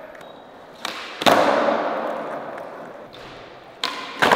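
A skateboard's tail popped on concrete, then the board slapping down, twice, with the wheels rolling and fading after each landing. Each slap is the loudest sound and rings in the big room.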